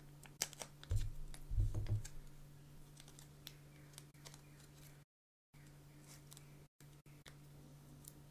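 Quiet crinkling and small clicks of fingerboard grip tape being handled and peeled from its yellow backing paper, with a couple of soft bumps in the first two seconds over a steady low hum.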